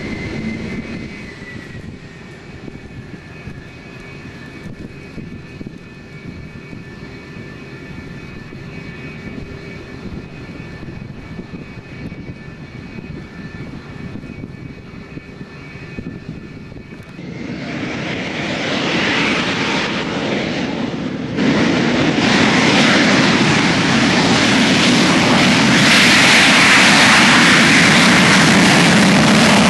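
Lockheed F-104 Starfighter's J79 turbojet whining steadily at low power, then spooling up loudly about 17 seconds in. About four seconds later the sound steps up suddenly as the afterburner lights, and the engine runs on at full afterburning power for the takeoff roll.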